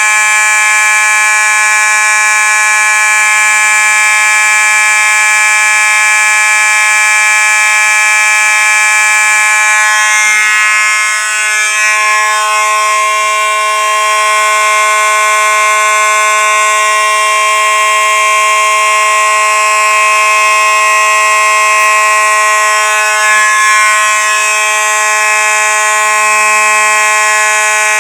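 Simplex fire alarm sounding a loud, continuous, unbroken electronic horn tone with many overtones.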